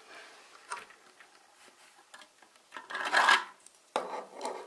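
Plastic building-brick model being handled: parts rubbing and clicking against each other. The loudest is a short rough rasping rub about three seconds in, followed by a few knocks and scrapes near the end.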